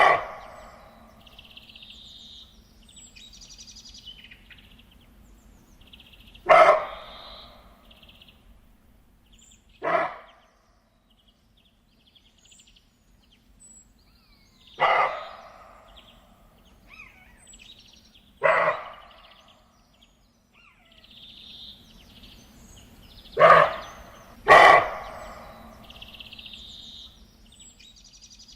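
Deer giving short, sharp barking calls, about seven spaced several seconds apart, the last two close together, each trailing off with an echo. Birds chirp faintly in the background.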